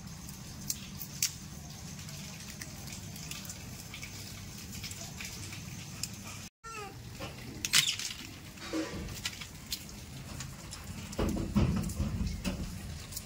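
Rhesus macaques feeding: scattered small clicks and rustles over a steady low background, with a brief high squeaky call about halfway through and a louder low rumbling burst near the end.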